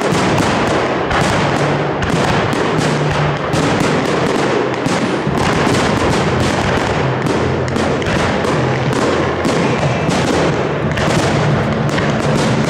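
Aerial firework shells bursting in rapid succession, many sharp bangs close together, over the show's music playing underneath.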